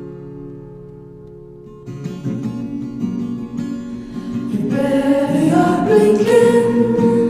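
Acoustic guitar music: a chord dies away, the guitar starts playing again about two seconds in, and a singing voice comes in just past the middle.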